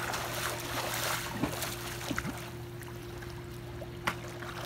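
Pool water splashing and churning as a child swims along the surface, busiest in the first couple of seconds and then settling to gentle lapping, with a few short sharp taps.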